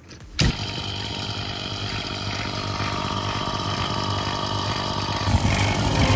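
Vacuum pump for the laminate's vacuum bag switched on about half a second in, its motor then running steadily with a hum, a little louder near the end.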